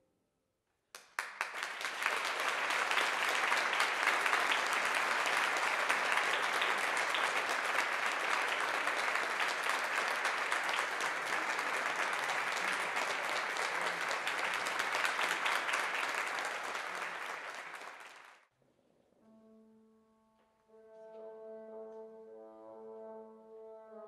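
Audience applauding, starting abruptly about a second in and dying away after about seventeen seconds. After a short pause, a brass instrument begins playing sustained notes near the end.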